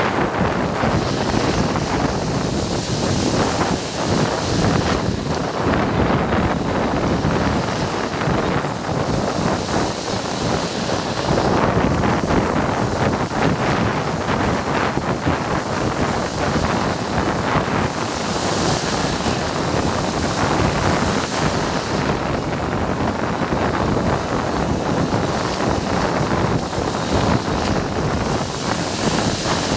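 Sea waves washing on the shore, with wind buffeting the microphone; the hiss of the surf swells and falls every several seconds.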